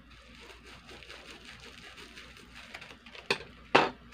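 Plastic bubble-wrap packaging rustling and crinkling as it is cut open with scissors, with two sharp clicks about half a second apart near the end, the second the loudest.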